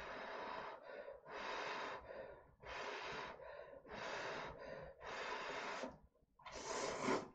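A person blowing on a chopstick-held bite of hot cup-ramen noodles to cool it: six breathy puffs about a second apart, the last one a little louder.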